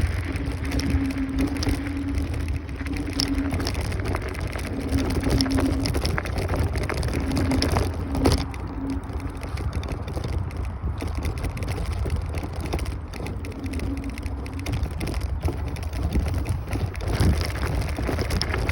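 Kaabo Wolf Warrior 11 Pro electric scooter being ridden: steady wind rumble on the microphone and tyre noise, with scattered small rattles and a low hum that comes and goes.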